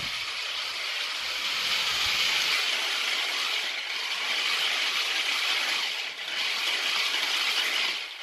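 Electric motors and gearboxes of a toy RC rock crawler truck whirring steadily as its wheels spin against a doorstep, with a brief dip about six seconds in.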